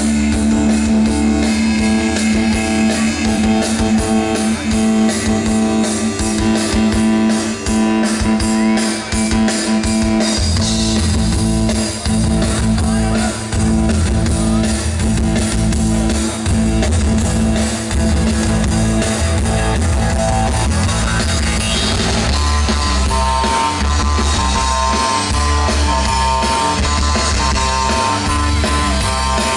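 Live rock band playing through a festival PA: electric guitars, bass and drum kit. A held, droning guitar chord carries the first part, and the bass and drums come in with a heavier, steady beat about ten seconds in.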